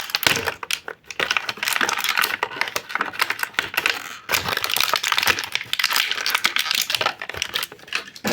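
Plastic toy packaging being handled and opened: continuous crinkling and crackling with many sharp plastic clicks as the action figure and its small weapon pieces are freed from the package.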